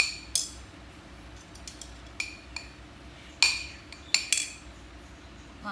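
Hard objects, dishware or cutlery, clinking: about seven separate strikes, each ringing briefly at the same pitch, the loudest about three and a half seconds in.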